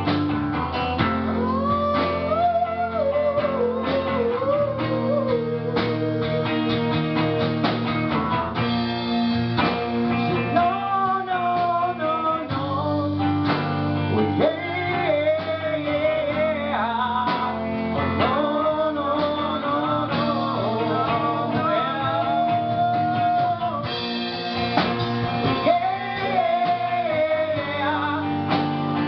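Live acoustic guitar strummed steadily, with a man singing a melody over it.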